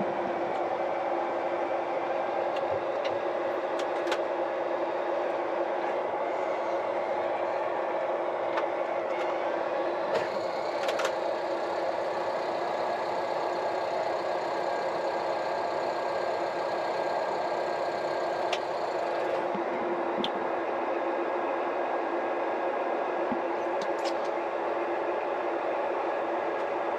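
Four-wheel-drive tractor engine running steadily, heard inside the cab. From about ten seconds in, a high whine rides over it for roughly ten seconds, then stops: an unfamiliar noise that did not sound pleasant.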